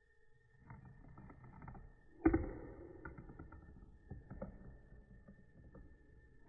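Plastic marble run building pieces clicking and clattering, with one sharp knock about two seconds in.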